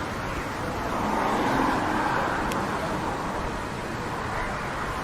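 Street traffic noise with a vehicle passing; it swells and is loudest about a second and a half in, then fades back to the steady street hum.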